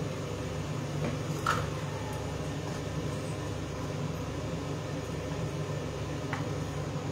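Steady low hum with a light clink of a utensil against a pan about a second and a half in, and a fainter clink near the end.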